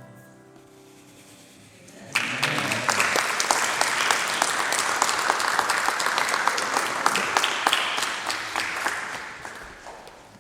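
The last held chord of the music dies away, then audience applause starts suddenly about two seconds in and dies down near the end.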